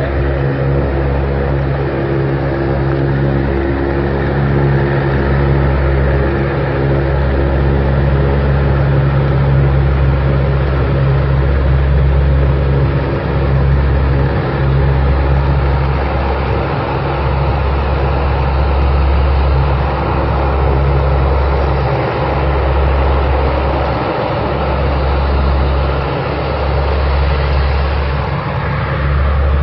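Four turboprop engines of a C-130 Hercules transport plane running on the ground, a loud, steady low drone with a constant pitch.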